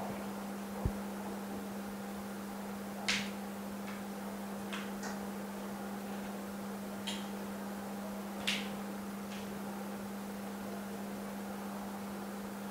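A steady low hum, with a handful of short, light clicks and taps scattered through it.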